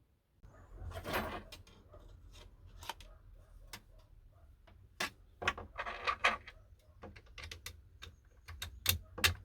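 Scattered small clicks and taps of metal and wooden parts being handled while a hand saw is reassembled, its handle fitted back onto the blade with saw screws. Rustling about a second in and again around six seconds in, and a few sharper clicks near the end.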